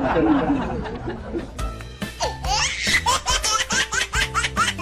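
Background music with rapid, high-pitched giggling laughter that starts about two seconds in.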